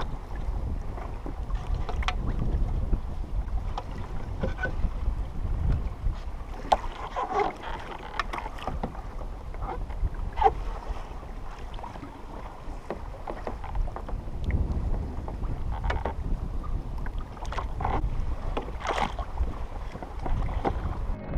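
Wind buffeting the microphone of a kayak at sea: a low rumble that swells and fades, with water against the hull and scattered light knocks and clicks as fishing gear is handled.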